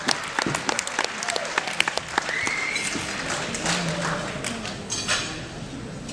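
Audience applauding with dense clapping that thins out and dies down over the last couple of seconds.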